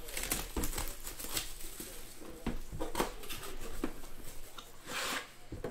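Plastic shrink wrap crinkling and tearing as it is stripped by hand from a cardboard box, a dense run of crackles, with a brief rustling scrape about five seconds in as the box is handled.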